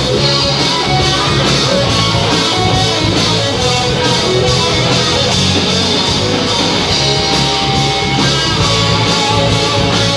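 Rock band playing live, loud and continuous: electric guitars over drums, with a keyboard.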